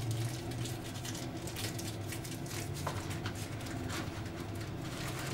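Light, irregular clicks and taps of small parts being handled and pressed into a moulded packaging tray, over a steady low background hum.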